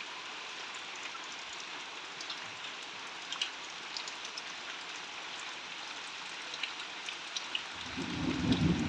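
Steady monsoon rain falling, a continuous hiss with scattered individual drops ticking close by. A low rumble comes in near the end.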